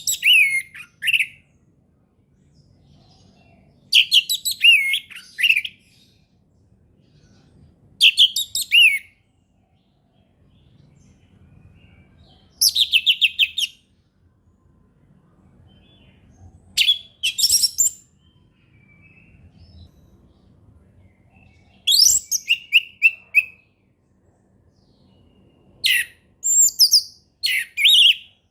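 Orange-headed thrush singing in its clear, loud 'ngeplong' style: seven short, varied phrases of quick high whistled notes, each about a second long, coming about every four seconds with pauses between.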